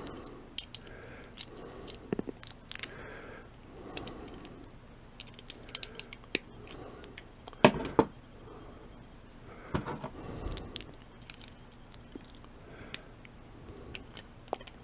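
Small metal clicks and ticks from needle-nose pliers working the tabs and links of a metal wrist watch band, irregular, with two louder clicks around the middle.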